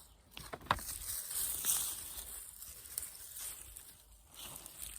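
Rustling and scraping of soil and dry potato plants as potatoes are dug out by hand, with a few light knocks in the first second.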